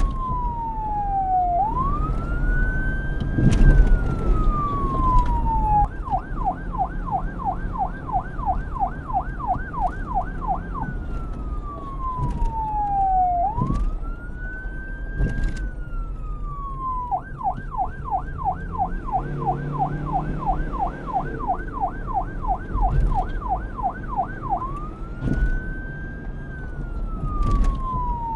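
Electronic police siren alternating between a slow wail that falls and rises and a fast yelp of about three sweeps a second, switching between the two twice, over a low rumble.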